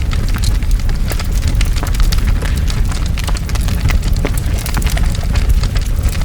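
Large fire burning with a steady low rumble and frequent sharp crackles and pops.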